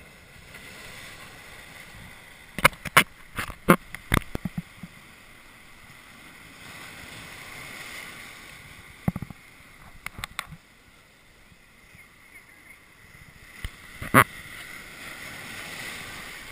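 Ocean surf surging and foaming over algae-covered jetty rocks close to the microphone, the wash swelling and easing. Sharp close-up splashes come in a cluster about three to four seconds in, again around nine to ten seconds, and once strongly near fourteen seconds.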